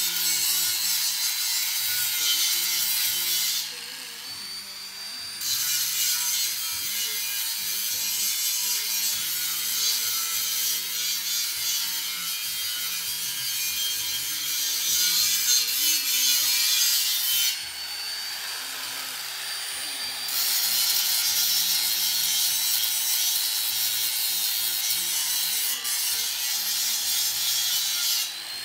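Handheld electric angle grinder grinding down MIG welds on galvanized hollow steel tube: a steady, harsh grinding hiss over the motor's whine. Twice, about four seconds in and again around eighteen seconds, the disc comes off the metal for a couple of seconds. Only the spinning motor is heard then, until the disc bites again.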